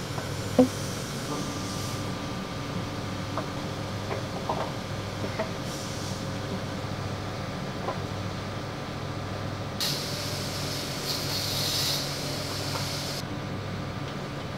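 Light metal clicks and taps of hands and tools working on an engine, with one sharp knock just after the start, over a steady machine hum. A hiss rises about ten seconds in and fades a few seconds later.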